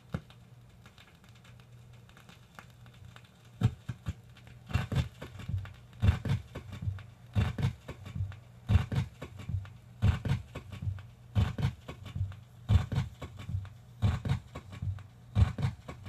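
Low, rhythmic thumps, often in pairs, repeating about every 1.3 seconds over a steady low hum. They begin a few seconds in, after a stretch of hum alone.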